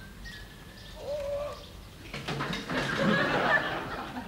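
Birds calling, then about two seconds in a rattling, rustling crash lasting nearly two seconds as a bicycle falls over into the grass.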